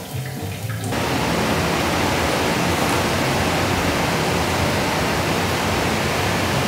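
Battered chicken pieces deep-frying in hot oil in a cast-iron skillet: a loud, steady sizzle that starts suddenly about a second in and holds level.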